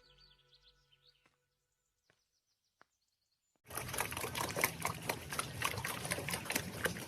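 A dense crackling noise of rapid, irregular clicks that starts abruptly about three and a half seconds in and cuts off suddenly.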